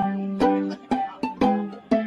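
Background music: a plucked string instrument playing short notes, about three a second.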